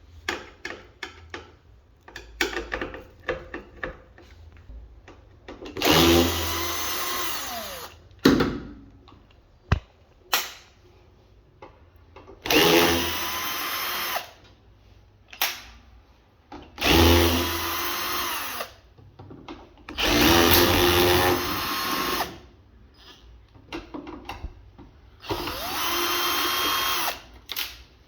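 Electric drill running in five short bursts of about two seconds each, with clicks and knocks of handling between them.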